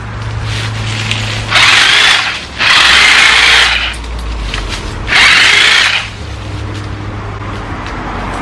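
Corded electric chainsaw running in three short bursts of about a second each as it cuts through branches and vines.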